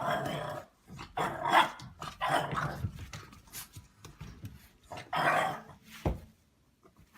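A dog barking and growling in about five short bursts, followed by a single thump about six seconds in.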